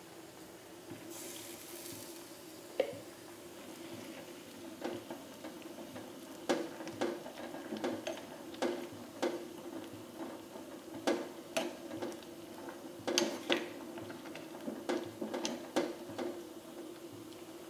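A ladle stirring water spinach (kangkung) in an aluminium pot, knocking and scraping against the pot many times from about six seconds in, over a steady low hum. The first few seconds are quieter handling, with a single knock.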